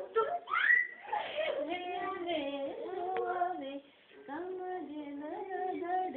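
A young boy singing a poem as a sing-song chant of held, changing notes, breaking off briefly about four seconds in. A short rising squeal near the start is the loudest sound.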